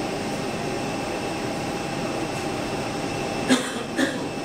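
Embraer 195 jet on landing approach: the steady whine and rush of its two General Electric CF34 turbofans at low approach power. Two short, sharp knocks about half a second apart come near the end.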